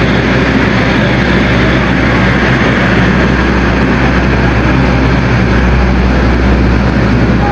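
Diesel locomotive engine running steadily and loudly, a constant low drone that holds level with no rise or fall.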